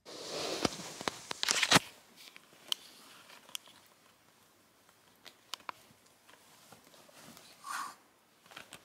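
Rustling and crinkling of a duvet with scattered sharp clicks as a cat and a kitten scuffle on the bedding, loudest for the first two seconds, then fainter, with a brief louder rustle near the end.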